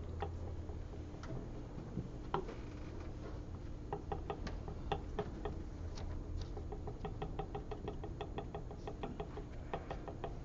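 Paint being dabbed on with a small sponge: light ticks and taps, coming in a quick regular run in the last few seconds, over a steady low hum.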